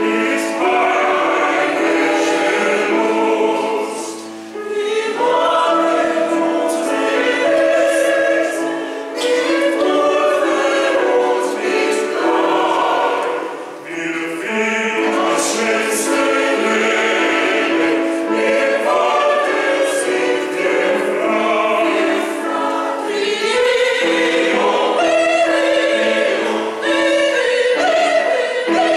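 Mixed choir of men and women singing in parts, accompanied by piano. The singing is sustained and continuous, with brief dips between phrases.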